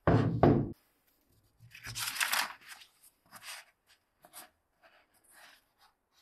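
A loud dull knock about the first second, then paper rustling and sliding as gloved hands lay a book open and handle its pages, with small scuffs and rustles after.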